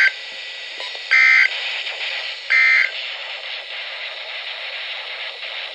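Emergency Alert System end-of-message data bursts: short, loud, harsh two-tone digital screeches about 1.4 s apart, two whole ones after the tail of a first, signalling that the alert has ended. A steady radio hiss carries on beneath and after them.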